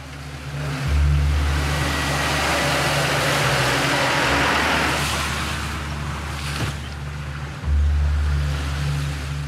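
Toyota Land Cruiser engine labouring as the vehicle drives through deep mud, with a loud rushing splash of muddy water under the tyres for the first few seconds that then dies down; the engine note steps up abruptly near the end.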